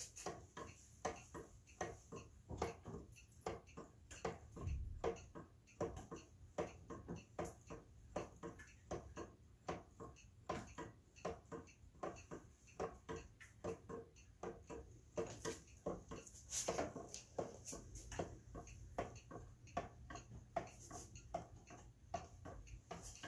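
Handmade wooden gear clock ticking steadily, its weight-driven wooden escapement clicking a few times a second, each tick with a slight wooden ring.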